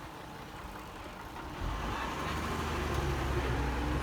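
Diesel engine of heavy earthmoving machinery running, growing louder about one and a half seconds in and then holding steady.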